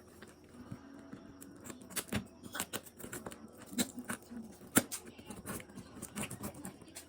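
Faint, scattered clicks and rustles of a parcel's packaging being handled.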